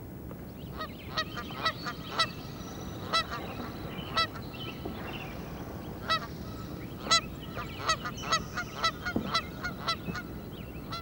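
Waterfowl honking: a long, irregular run of short, sharp honks, some coming in quick pairs, over a steady low background hiss.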